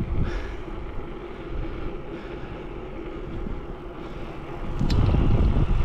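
Electra Townie 7D bicycle rolling on asphalt, its tyres and drivetrain making a steady hum. About five seconds in it grows louder and rougher as the tyres roll onto a brick-paver driveway, with a couple of sharp clicks.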